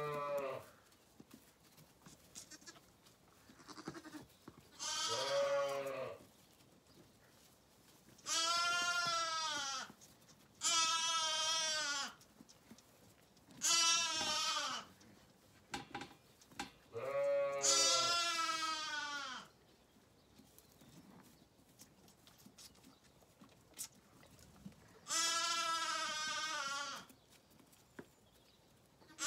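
Zwartbles lambs bleating at bottle-feeding time: about seven long, wavering bleats, each one to two seconds long, coming several seconds apart.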